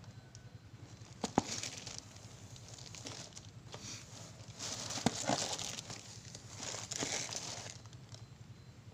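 Plastic mailer bag rustling and crinkling as it is handled and turned over, in a few bursts, with a sharp tap about a second in.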